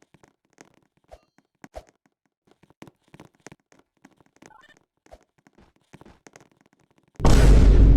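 Faint, scattered small clicks and taps, then, a little over seven seconds in, a sudden very loud, harsh blast of noise cuts in: a loud comedic sound effect.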